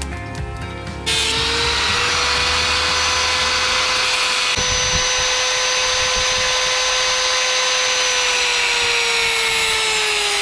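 Electric power tool starting about a second in and running steadily at speed, with a high motor whine over a hissing noise. The whine sags slightly in pitch near the end and the sound then cuts off abruptly.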